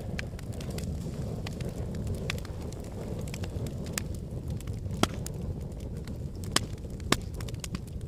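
Wood fire burning in a fire pit: a steady low noise of the flames with scattered sharp crackles, and a few louder pops, one about five seconds in and two more near the end.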